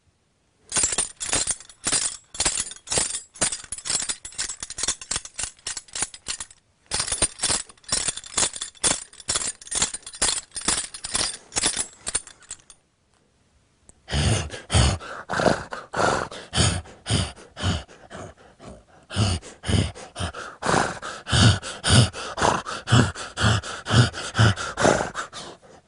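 Foley horse bridle: metal bridle hardware jingled and clinked in a steady trotting rhythm, about three or four strokes a second. It stops about twelve seconds in, then resumes after a short pause with low thuds under the jingling.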